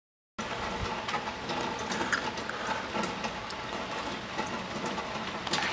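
Light rain falling: a steady hiss with many scattered small drips and ticks, starting after a brief silence.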